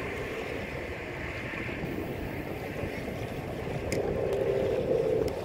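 Steady outdoor noise with a fluttering low rumble, like wind on the microphone over open water. A faint steady motor-like hum comes in about four seconds in.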